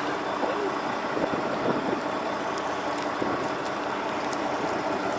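Fishing boat's engine idling, a steady hum under a constant rush of wind and sea noise.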